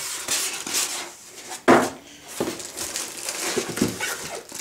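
Cardboard box and white foam packing being handled: rustling and scraping as the packing is lifted out and the box flaps are moved, with one sharp knock a little under two seconds in, the loudest sound.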